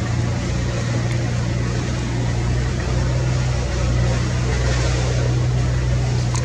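A steady, constant low mechanical hum under an even hiss, like an engine running.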